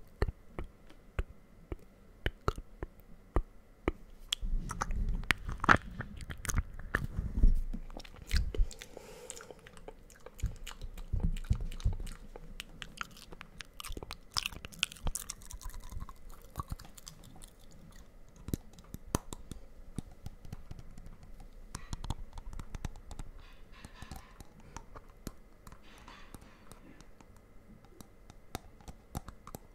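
Close-up ASMR mouth sounds into a microphone: irregular wet clicks and smacks, with hands moving close around the microphone. The clicks are dense throughout, with a stretch of low rumbling in the first half and lighter clicking later.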